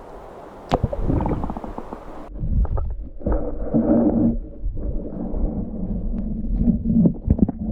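Muffled underwater sound with the microphone submerged in the lake: low rumbling and sloshing with scattered knocks, and nothing high-pitched left once it is fully under.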